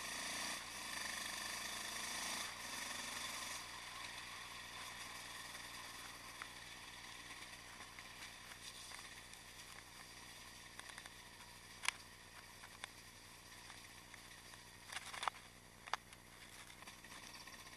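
Yamaha XT660X supermoto's single-cylinder engine running at low speed, heard muffled. It drops quieter about three and a half seconds in, and a few sharp clicks come in the last third.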